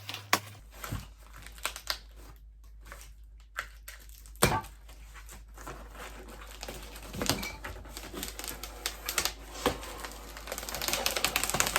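Packaging rustling and crinkling as a boxed clothing rack is unpacked, with scattered clicks and knocks from the parts being handled. One sharp knock comes about four and a half seconds in, and the rustling gets busier near the end.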